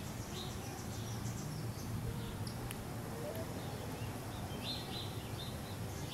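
Outdoor background: a steady low rumble with a few short, high bird chirps, one near the start and several close together near the end.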